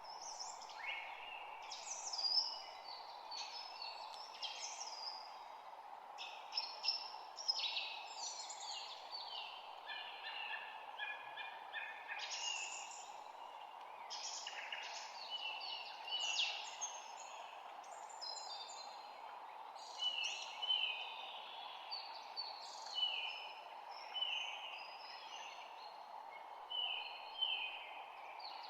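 Songbirds singing in a spring chorus: a dense stream of overlapping high chirps, trills and short whistled phrases, with no break. Under it runs a steady, even background hiss.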